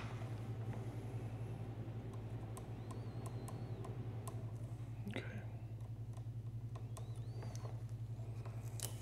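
Rod-building power wrapper motor running steadily, turning the rod while thread is wrapped over a hook keeper: a low hum that pulses several times a second, with scattered light clicks. A brief rustle of handling about five seconds in.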